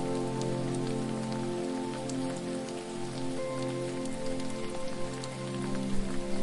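Steady patter and splash of falling water, heard as fine ticks over a constant hiss, under held low tones of ambient music whose chords change every few seconds.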